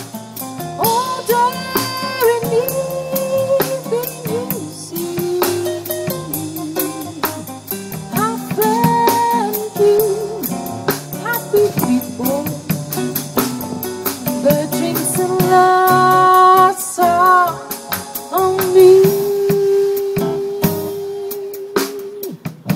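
Live band playing a slow song: drum kit with cymbals keeping a steady beat under keyboard, and a singer's voice carrying long, wavering notes, with one note held for several seconds near the end.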